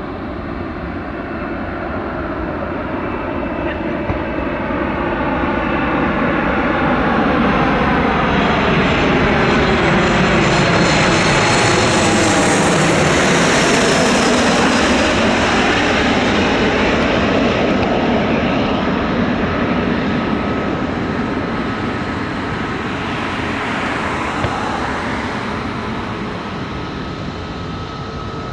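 Boeing 737 jet airliner on final approach, its engines' roar and whine growing as it flies low overhead, loudest about midway, with the pitch sliding down as it passes and the sound easing off as it drops toward the runway.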